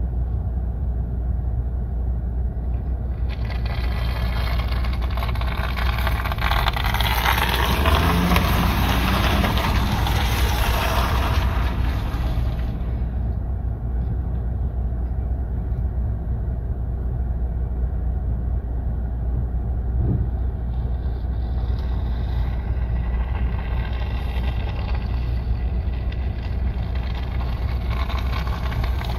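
Steady low rumble of an idling vehicle, heard from inside its cabin. From about three seconds in to about thirteen seconds a louder rushing noise rides over it.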